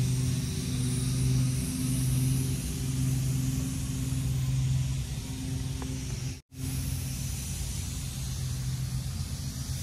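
A steady low hum with a high hiss over it, cut off abruptly for an instant about six and a half seconds in.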